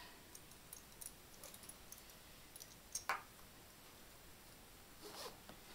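Faint clicks and handling noise from the solid metal buckle and webbing of an Edelrid belt being fastened, with one clearer click about three seconds in and a soft rustle near the end.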